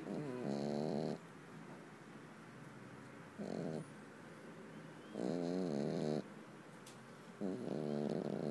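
An Exotic Shorthair cat snoring in its sleep: four wavering snores, each under a second long, about every two seconds, with quiet breathing in between.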